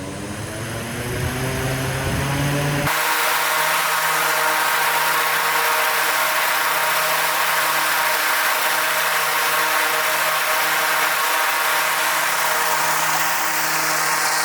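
A powered blower spinning up, its pitch rising for the first few seconds, then running steadily at full speed with a loud rush of air, producing artificial wind for a tent wind test.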